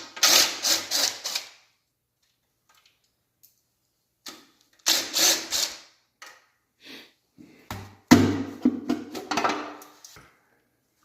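Impact wrench run in three short bursts, each a rapid hammering rattle: one at the start, a shorter one about five seconds in, and a longer, heavier one about eight seconds in, working loose a stubborn bolt on a 400ci Mopar engine during teardown.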